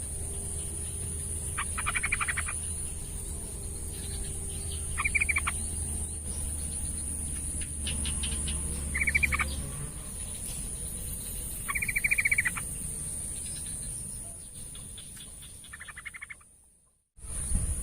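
Sooty-headed bulbul singing short chattering phrases, five of them spaced a few seconds apart, over a steady high-pitched whine. The sound cuts out abruptly to silence for a moment near the end.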